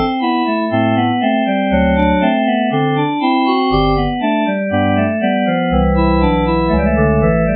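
Harmodion virtual organ playing its Shrine Organ preset: chords and a melody over short bass notes about once a second. About three quarters of the way through, the bass changes to held notes.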